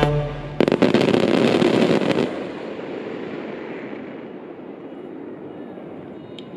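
Aerial firework shells bursting in a quick volley about half a second in, followed by a loud noisy tail that slowly fades away as the display dies down.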